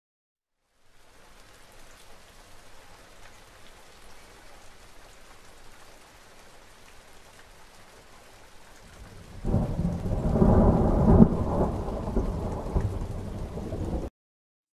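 Steady rain hissing, then about nine and a half seconds in a loud rolling rumble of thunder that goes on for several seconds and cuts off suddenly.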